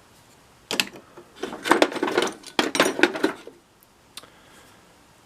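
Metal hand tools clinking and clattering against each other as they are rummaged and lifted out of a toolbox. There is a single knock about a second in, then a busy run of knocks until about three and a half seconds, then one faint tap.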